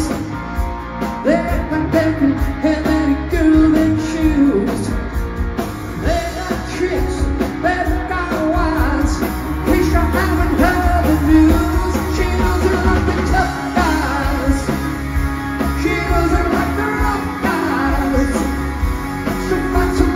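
Live rock band playing: sung lead vocals over electric guitars, bass and drums.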